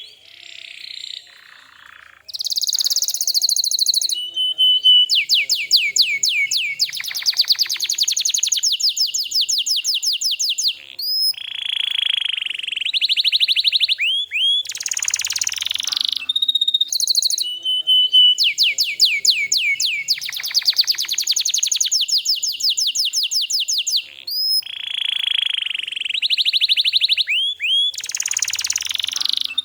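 Domestic canary singing a long, varied song of fast trills and rolls made of rapid, evenly repeated notes, broken by short sliding whistles and brief pauses. A stretch of the song comes round again about halfway through.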